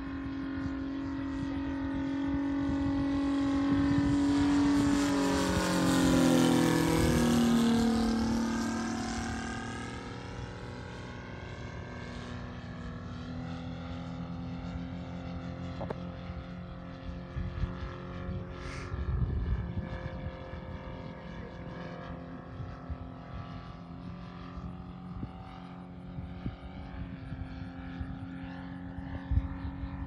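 Saito FG-90R3 three-cylinder radial gas engine of a model F4U Corsair in flight: a steady drone that swells to a close pass about six seconds in, dropping in pitch as the plane goes by, then carries on more faintly as it flies off. Wind buffets the microphone throughout.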